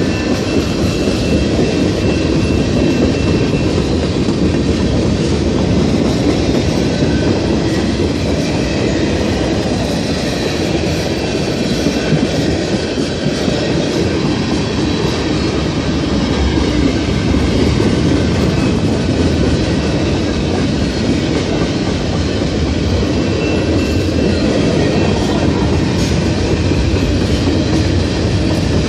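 Freight train cars rolling past, a steady noise of steel wheels on the rails. A faint high wheel squeal shows near the start and again after about 23 seconds.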